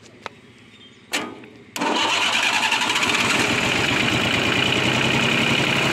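VST mini tractor's diesel engine started directly at the starter motor, because its self-starter is faulty. A short burst about a second in, then the engine catches just before two seconds and runs steadily.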